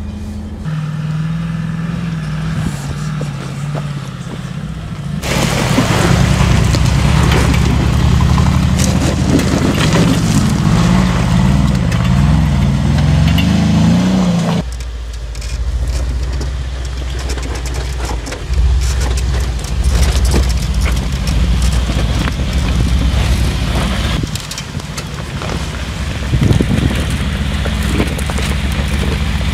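Mercedes-Benz G 500 4x4²'s 4.0-litre biturbo V8 running as it drives off-road, its pitch rising and falling as it is revved. The sound changes suddenly twice, about five and about fifteen seconds in, and is loudest between those points.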